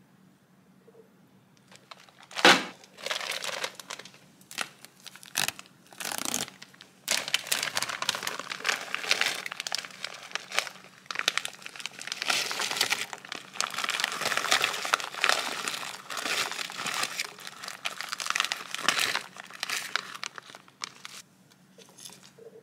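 Plastic bag of frozen berries crinkling as it is handled and tipped out. There is a loud sharp crackle about two and a half seconds in, then almost unbroken crinkling from about seven seconds in until shortly before the end.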